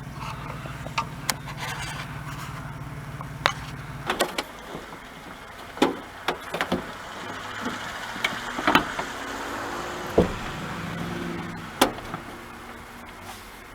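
A steady low mechanical hum stops about four seconds in. It is followed by scattered sharp clicks and knocks of plastic trim and parts being handled at the van's rear liftgate.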